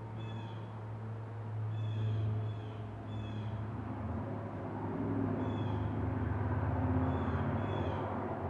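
Blue jay nestlings giving short high chirps, singly and in pairs, several times over a few seconds, over a steady low hum.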